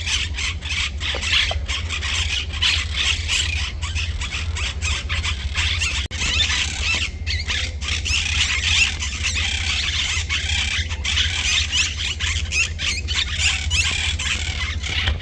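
Many small birds chirping and chattering continuously in a dense, overlapping chorus, over a steady low hum.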